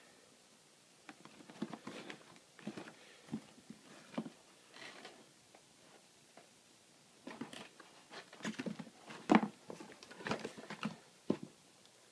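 Cardboard toy box being handled: irregular light taps, creaks and finger rubbing on the box, in two bursts with a pause between, the sharpest knock about nine seconds in.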